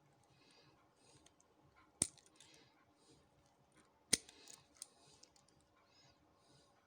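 Small metal clicks from a Union 5-pin rim cylinder being taken apart, as its pins are removed and set down: two sharp clicks about two seconds apart, the second followed by a few lighter ticks.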